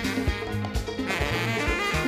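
Background music with a steady beat and several pitched instruments.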